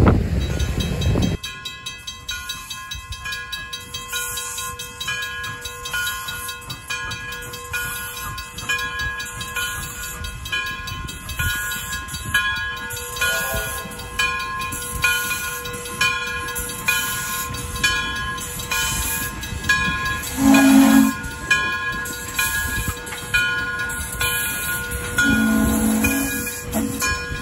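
Frisco 1630, a 2-10-0 steam locomotive, working past with rhythmic exhaust chuffs and steam hiss, a steady ringing carried over it. Short steam whistle blasts sound about two-thirds of the way through and again near the end. Wind buffets the microphone for the first second.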